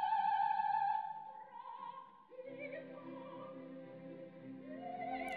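Opera music without narration: a long sung note held with a wavering pitch fades out, and soft sustained orchestral chords follow from about two seconds in.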